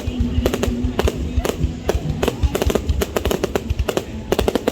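Fireworks going off: a dense, irregular run of sharp bangs, several coming in quick clusters.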